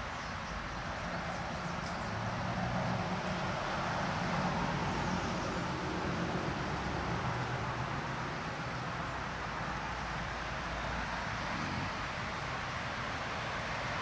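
Steady, even rush of a trout creek running high after rain.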